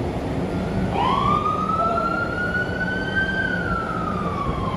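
A siren wailing: one slow cycle that starts about a second in, climbs in pitch, peaks midway and slowly falls again, over a steady low hum.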